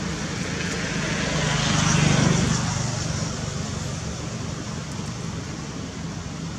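A motor vehicle passing by, its sound swelling to a peak about two seconds in and then fading away, over a steady background hiss.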